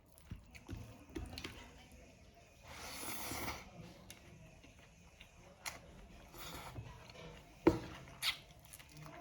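Close-up eating sounds: quiet chewing and handling of food with small clicks and taps. There is a short noisy burst about three seconds in, and a sharp tap nearly eight seconds in is the loudest sound.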